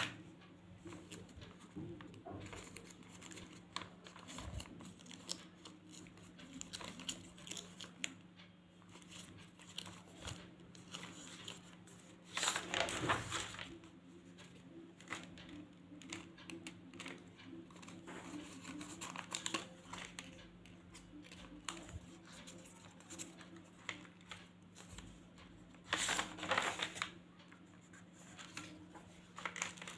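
Paper rustling and crinkling as the pages of a spiral-bound scrapbook are handled and pasted paper flaps lifted, with two louder page turns, one about halfway and one near the end. A low steady hum runs underneath.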